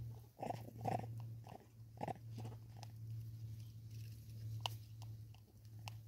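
Vervet monkey rummaging in a plastic container of bird seed and eating it: a cluster of short crunching, rustling bursts in the first couple of seconds, then a few scattered sharp clicks.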